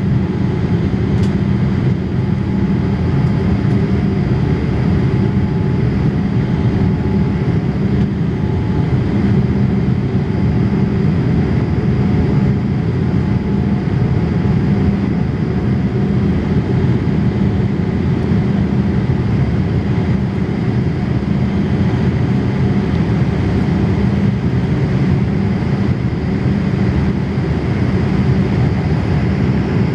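Boeing 787 Dreamliner cabin noise during the climb after take-off: a steady, loud, low rumble of the engines and airflow, heard from a window seat over the wing, with a faint steady hum above it.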